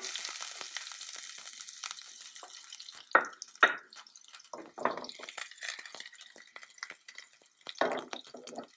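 Chopped shallots sizzling in very hot oil in a skillet or wok, the hiss starting suddenly and slowly fading, with a utensil scraping and stirring them in the pan several times, the loudest strokes about three and eight seconds in.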